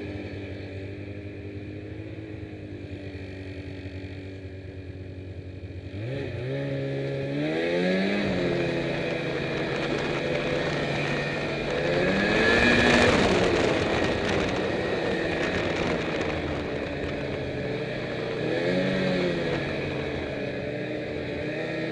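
Snowmobile engine running steadily at low revs, then throttled up about six seconds in, its pitch rising and falling as the rider accelerates and eases off several times. It is loudest around the middle, where a rush of noise comes in over the engine.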